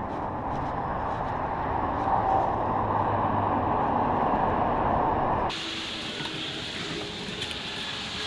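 A steady rumbling noise that swells a little, then cuts off abruptly about five and a half seconds in, leaving a fainter hiss with a few light ticks.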